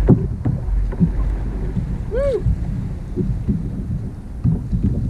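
Wind buffeting the microphone and water sloshing around a fishing kayak, with scattered knocks from rod and landing-net handling while a hooked fish is played. A single short pitched cry rises and falls about two seconds in.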